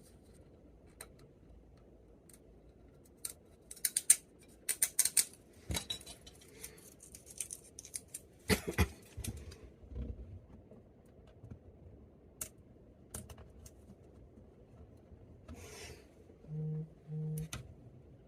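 Hands handling small plastic containers and packaging: scattered clicks, taps and rustling scrapes, busiest in the first half. Near the end come two short, low hums.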